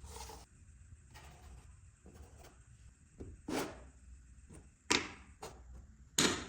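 Short knocks and scraping strokes of wood and tools being handled, a few sharp strokes in the second half with the loudest near the end.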